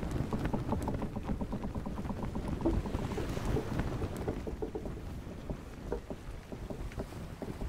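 Choppy water splashing and slapping against the hull of a small boat as it moves across the lagoon, a steady rush of dense little splashes.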